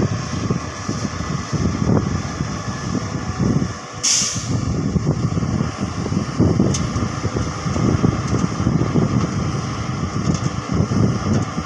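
Hyundai crawler excavator's diesel engine running under load as it digs and swings, with the dump truck's engine running alongside. A short hiss of air comes about four seconds in.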